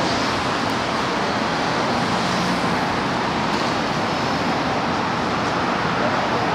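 Steady road traffic on a city street: an even, continuous rush of passing vehicles.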